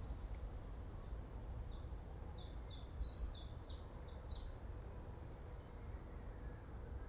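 A songbird sings a run of about eleven quick, high notes, each sliding downward, over about three and a half seconds. Behind it is a steady low rumble of wind.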